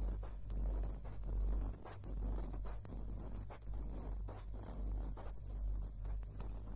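Two small grey blocks rubbed and scraped right up against a stereo recorder's microphones, making a run of irregular scratchy strokes over a deep rumble.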